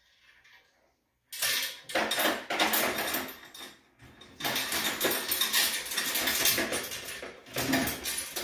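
Steel trap chain and a large crunch-proof swivel clinking and rattling while fencing pliers are worked around the swivel's hook to crimp it onto a chain link. The clatter starts about a second in, with a brief lull partway through.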